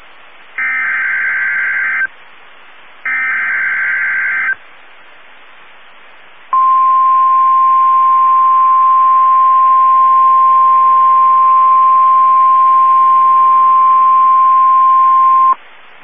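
NOAA Weather Radio Emergency Alert System signal received over a radio. It opens with the last two SAME digital header bursts, each about a second and a half long with radio hiss between them. About two seconds later comes the steady single-pitched 1050 Hz warning alert tone, held for about nine seconds and cut off sharply; it signals that a warning message, here a severe thunderstorm warning, follows.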